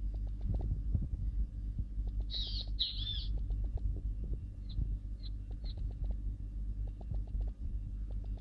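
A bird calling: two loud, harsh calls a little over two seconds in, then three short high notes about a second later, over a steady low rumble.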